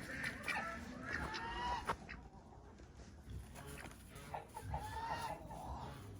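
Chickens clucking: a run of short calls in the first two seconds, a brief lull, then more clucks from about three and a half seconds in.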